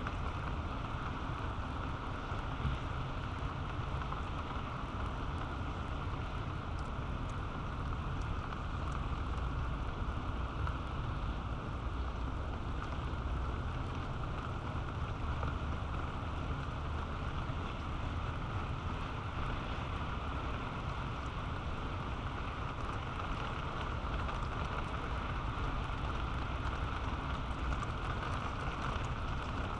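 Steady rain falling and pattering, with a steady low rumble beneath it.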